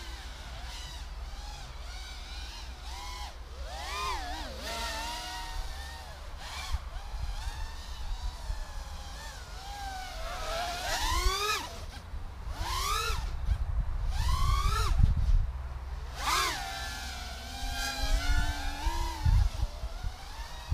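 Mini FPV quadcopter on an RX-130 frame, with 1306 brushless motors and 3-inch three-blade props, flying: its motor-and-propeller whine swoops up and down in pitch with each throttle change, louder around the middle, over a low rumble.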